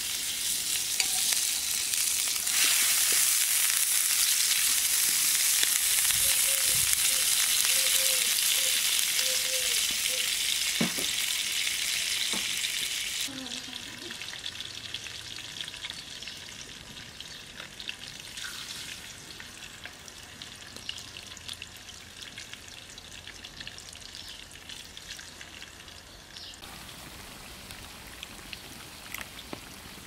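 Fish sizzling on a hot sadj pan over a campfire. The sizzle is loud for the first dozen or so seconds, then drops suddenly to a quieter sizzle with scattered crackles.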